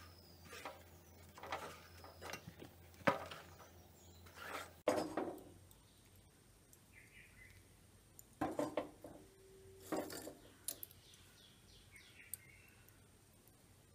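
Scattered light knocks, clatter and rustles of handling at a gas stove: a banana leaf being wilted over the flame, then a pan of coconut-shell charcoal on the burner. A low hum runs under the first third and stops abruptly.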